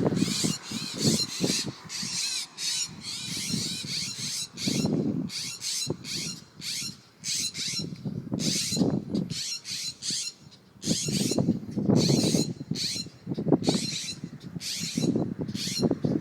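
Agitated parent birds giving rapid, harsh alarm calls over and over, scolding after their fledgling has been caught. Intermittent low rustling and bumping sounds come and go close by.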